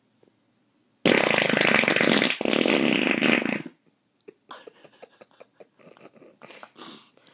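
A loud, drawn-out fart noise starts about a second in and lasts nearly three seconds, with a brief break partway through. Faint scattered clicks and rustles follow.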